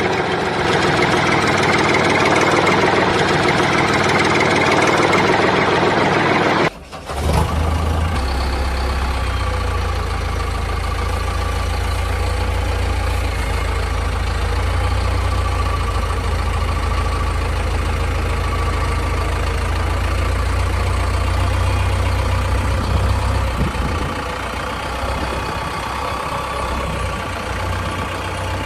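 Engine idling sound, steady throughout. About seven seconds in it breaks off briefly and turns into a lower, steady rumble.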